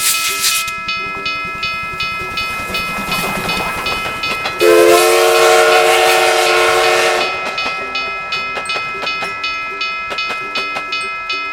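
Japanese railroad crossing bell ringing at about two strokes a second while a steam train goes by with a hiss and a low rumble. About four and a half seconds in, the locomotive's steam whistle blows loudly for about two and a half seconds.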